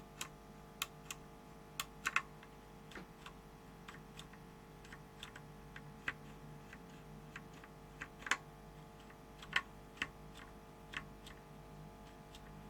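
Loose Alps SKCM Black keyboard switches, not mounted in a keyboard chassis, pressed by hand: sharp, irregular clicks, roughly one or two a second.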